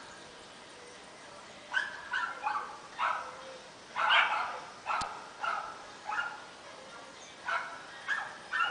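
A dog barking repeatedly: about a dozen short barks that start nearly two seconds in, the loudest about four seconds in.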